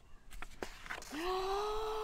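A few soft clicks as a picture-book page is turned. Then a woman's voice draws out one long vocal sound, held at a steady pitch for about a second.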